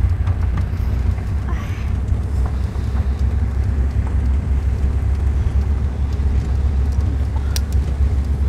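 Pickup truck driving, heard from the open cargo bed: a steady low engine and road rumble, with a brief click near the end.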